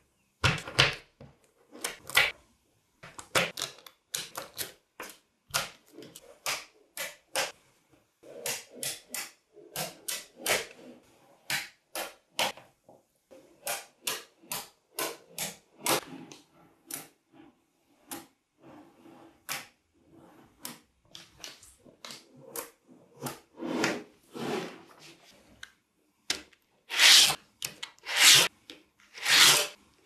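Small magnetic balls clicking and clacking in quick, irregular bursts as blocks of them are snapped together, pulled apart and set down. Near the end come several longer, louder rasping scrapes as a slab of the balls is slid along a plastic sheet.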